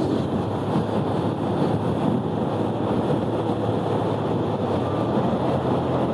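Yamaha Exciter 150 single-cylinder motorcycle engine running steadily while riding, under a steady rush of wind noise on the microphone.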